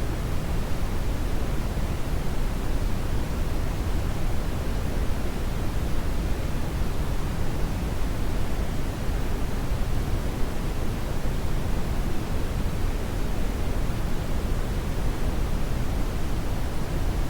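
Brown noise: a steady, even rushing hiss weighted heavily toward the low end, with no tones or events.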